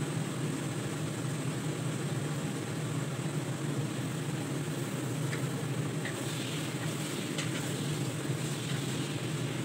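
A steady low mechanical hum runs throughout, with a few light clicks of a wooden spatula in a wok in the second half.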